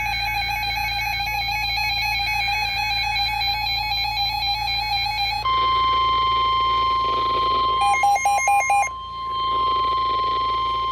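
NOAA weather radios sounding an alert: a warbling electronic alarm for about five seconds, then the steady 1050 Hz NOAA Weather Radio warning tone, with a short run of about four pulsing beeps about halfway through the steady tone. The tone marks a warning broadcast about to be read.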